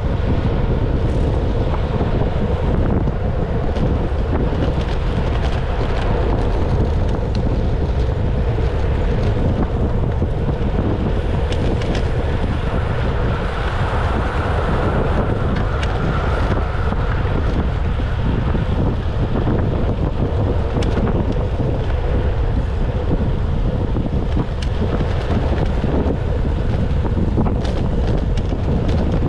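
Steady wind noise buffeting the microphone, a heavy, even rush strongest in the low end, unbroken throughout.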